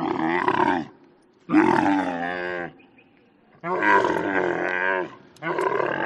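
Camel growling: four rough, pitched calls of about one to one and a half seconds each, separated by short pauses, their pitch wavering.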